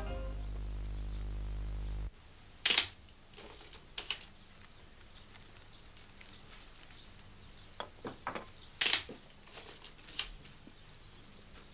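A held low music chord ends abruptly about two seconds in. Then come a handful of sharp, separate clicks, including a camera shutter and the snap of briefcase catches, over faint bird chirps.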